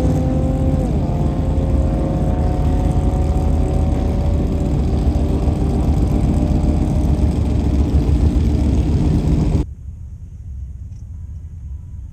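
Holden VS Commodore engine at full throttle on a drag run, its pitch climbing steadily. About a second in, the automatic gearbox shifts up with a sudden drop in pitch, and the engine climbs again through the next gear. Near the end the engine sound cuts off abruptly, leaving a much quieter rumble.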